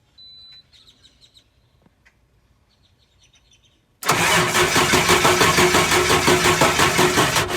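T444E (7.3 Power Stroke) V8 diesel in a 2001 International school bus being cranked on its starter, beginning about four seconds in and running for about three and a half seconds with an even pulsing beat, without the engine catching. The starter labours to turn the engine over, a sign of a very low battery.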